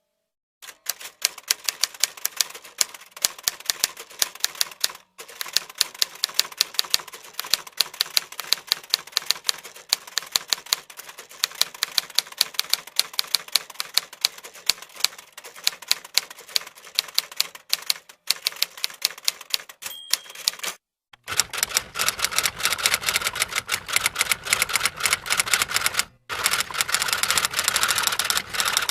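Typewriter keys being struck in a steady run of sharp clacks, several a second. About two-thirds of the way through there is a short pause, then a faster, denser clatter of typing.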